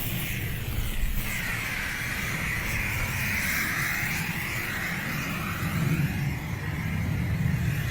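A steady engine running, with a low rumble under a hissing whoosh that slowly swells and fades.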